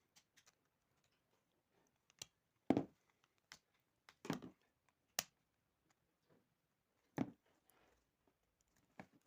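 Irregular, sharp clicks and knocks of small hard parts being handled during an electric kettle repair, about seven in all, the loudest about three seconds in.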